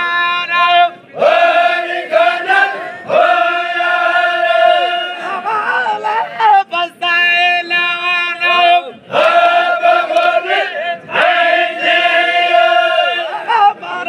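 A group of men singing chogan, the Baloch Zikri devotional chant, in unison. They hold long notes in phrases of about two seconds, with brief breaks between them.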